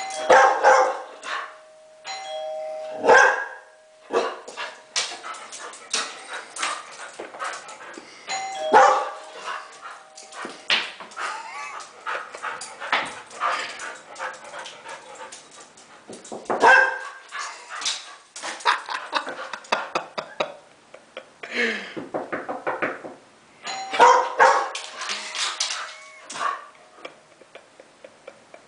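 A two-tone ding-dong doorbell chime rung about four times, and a dog barking in quick volleys throughout in reaction to the bell.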